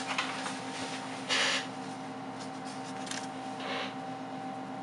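Plastic packaging and a phone back-protector film handled and peeled, in short crinkling rustles with a few light ticks; the loudest rustle comes about a second and a half in. A steady low electrical hum runs underneath.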